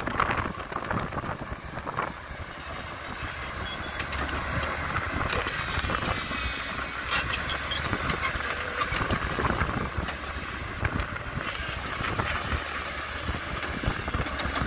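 Diesel engine of a Caterpillar tracked hydraulic excavator running steadily under load while the bucket digs, with a few sharp knocks from the bucket in the dirt.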